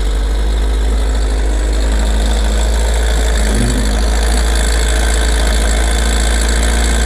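Kawasaki ZR-7S air-cooled inline-four engine idling steadily from a cold start on choke, with an abnormal mechanical noise at idle that the owner believes is probably the cam chain.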